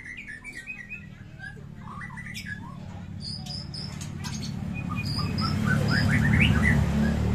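White-rumped shamas singing in cages: quick runs of short chirps and high whistled notes. A low hum grows louder through the second half and becomes the loudest sound.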